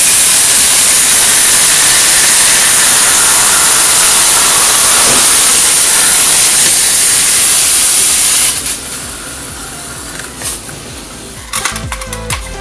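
A red-hot kitchen knife hissing loudly and steadily as it melts into the neck of a full plastic cola bottle, the cola boiling and foaming against the blade. The hiss cuts off about eight and a half seconds in, followed by a few light knocks.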